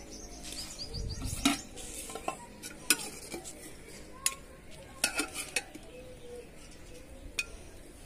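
Metal ladle scraping and clinking against a metal cooking pot and a small metal bowl as curry is scooped out and served, with several sharp clinks.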